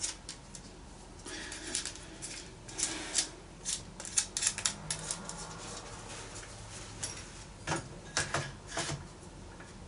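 A DJI Ronin-MX battery pack being handled and fitted into the gimbal's handle, making irregular small plastic clicks and knocks.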